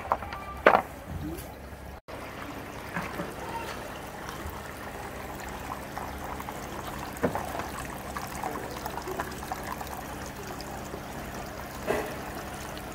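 Water trickling and splashing steadily in small decorative water fountains, with two sharp knocks in the first second.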